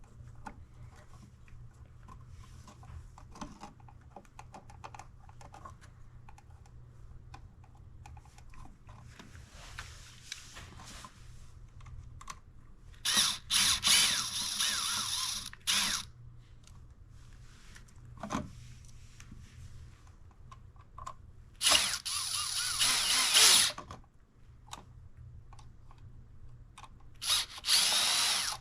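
Cordless drill/driver run in three short bursts, about halfway through, again about three-quarters through, and near the end, backing out screws on the old wall outlet. Faint handling noises come in between.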